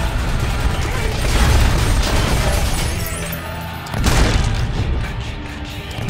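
Dramatic score music under gunfire, with a loud shotgun blast about two-thirds of the way through.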